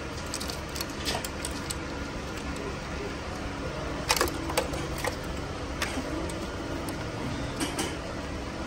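Scattered clicks and light rattles of a plastic engine wiring harness and its clips being handled and set in place, the loudest click about four seconds in, over a steady low hum.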